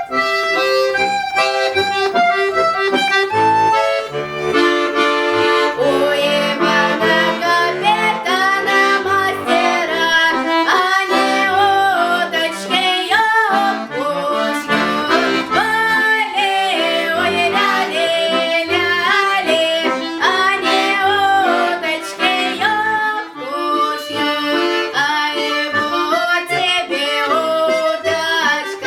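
Accordion playing a folk song tune: a melody line over sustained chords.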